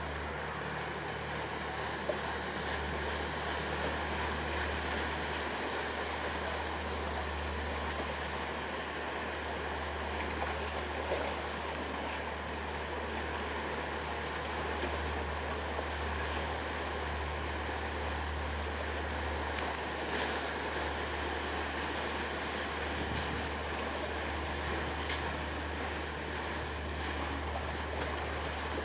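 A paddle steamer under way on a lake: a steady rush of churning, splashing water over a continuous low hum.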